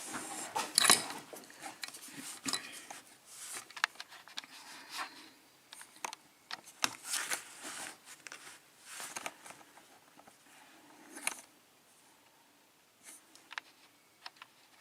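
Handling of a Wilka euro cylinder lock and its key: scattered small clicks, taps and brief scrapes, busiest in the first few seconds and dying away after about eleven seconds.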